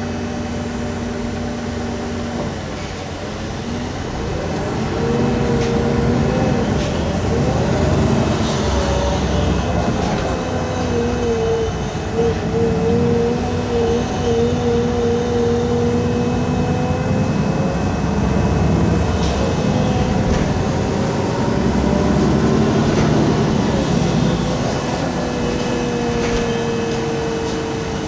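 Inside a 2013 MAN Lion's City G articulated bus running on CNG, its MAN E2876 engine and ZF Ecolife six-speed automatic gearbox are heard. The engine hums steadily at first. About four to five seconds in it grows louder as the bus pulls away and accelerates, and the whine rises and falls with the gear changes, over a steady road rumble.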